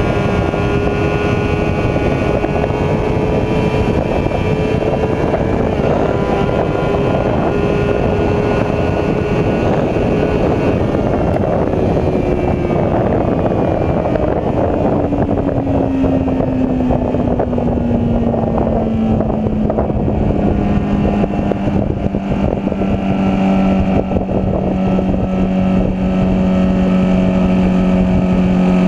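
Honda CBR sport bike's inline-four engine running at road speed under heavy wind rush on the bike-mounted camera. The engine note holds steady, falls smoothly from about halfway through, then settles lower. Near the end a second engine note joins, from another motorcycle coming alongside.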